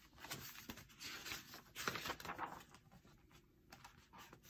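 Pages of a picture book being flipped over and the book handled: paper rustling and flapping, busiest in the first couple of seconds, with a few softer rustles near the end.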